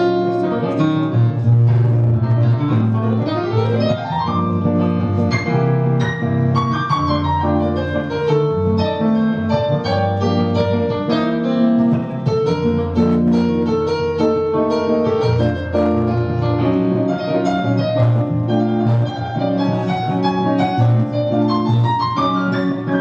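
Jazz piano playing, with a steady low bass line and quick rising runs of notes a few seconds in and again near the end.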